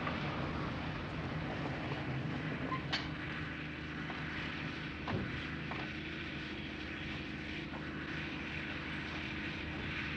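Motor vehicle engine running steadily as it drives, a continuous low drone with a couple of faint clicks.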